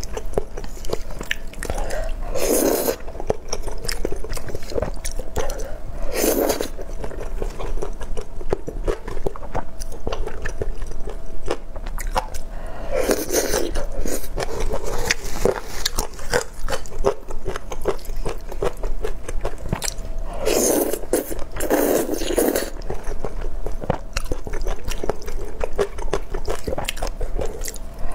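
Close-miked chewing of thick rice noodles in chilli sauce, a steady run of small wet clicks, broken several times by louder slurps as noodles are sucked into the mouth, the last one near the end.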